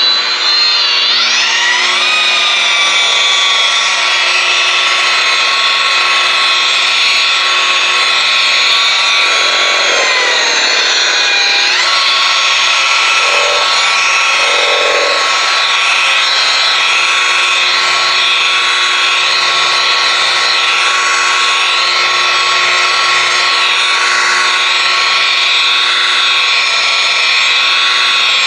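Electric rotary polisher with a blue foam finishing pad spinning on a car's painted hood during the final polishing step: a steady motor whine. It rises in pitch as it spins up at the start, then sags and recovers about ten seconds in.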